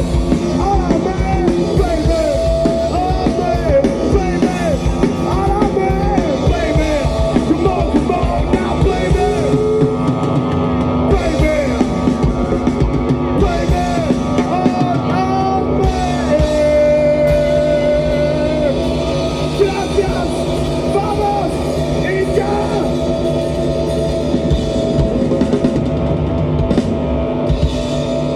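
Rock band playing, with a drum kit driving a steady beat under a singing voice.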